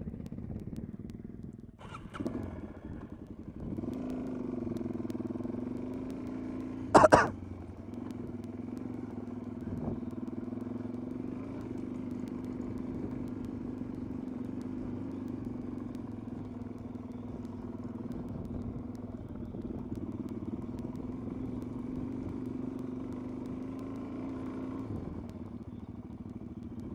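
Suzuki DR-Z400SM's single-cylinder four-stroke engine running steadily under way, rising in a rev about four to six seconds in. A sharp, loud knock comes about seven seconds in.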